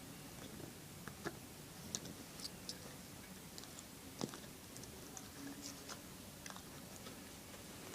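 Miniature Jack Russell terrier puppy hiccuping: faint, short clicks at irregular intervals, the sharpest about a second, two seconds and four seconds in.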